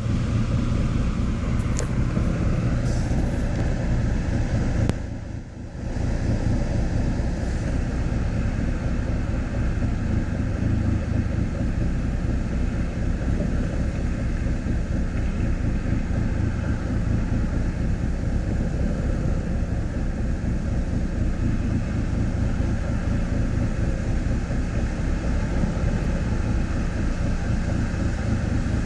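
Car engine idling roughly, running unevenly, with a short dip in level about five seconds in.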